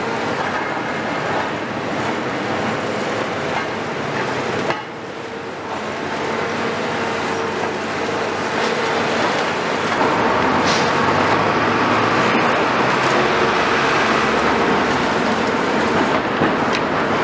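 Heavy demolition excavator, a Caterpillar 374F with its Cat C15 diesel, running steadily under load while it works a debris pile, with a train passing on the tracks behind. The noise grows louder and denser about ten seconds in.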